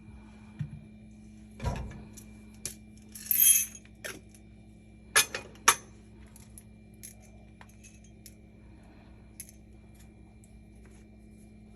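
Coffee gear being handled: scattered clicks and clinks of metal and glass, with a brief jingling rattle about three seconds in and two sharper knocks a couple of seconds later, over a steady low hum.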